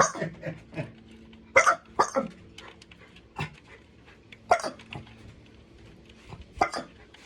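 Dog barking in short single barks, some in quick pairs, spaced a second or two apart: set off by the doorbell being rung.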